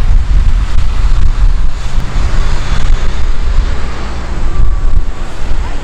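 Heavy, fluctuating low rumble of wind buffeting the microphone, over the roar of a four-engine Airbus A340's jet engines at takeoff power during the takeoff roll.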